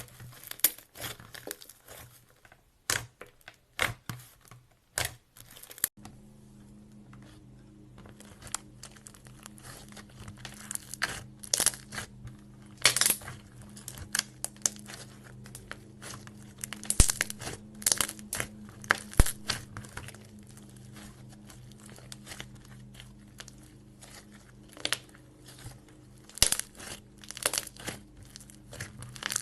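Clay slime being mixed and squished by hand, giving irregular runs of sharp crackling clicks and pops. About six seconds in, a low steady hum starts beneath the clicks.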